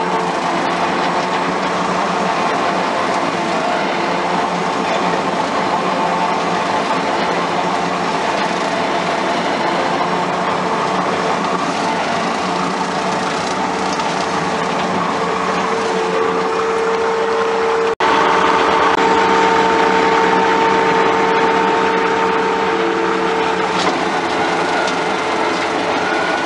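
Skid steer engine and its hydraulically driven rotary mower deck running steadily under load, with a steady whine over the engine. The sound breaks for an instant about two-thirds through, then carries on a little louder with a stronger whine.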